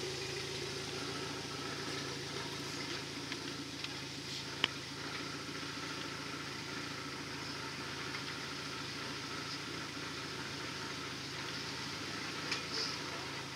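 Suzuki Samurai's engine running steadily at low revs as it crawls over rocks, with one sharp click about four and a half seconds in.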